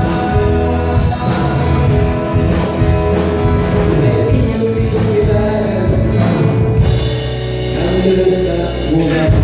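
Live band performing a song: singing with backing vocals over keyboard and a drum kit keeping a steady beat.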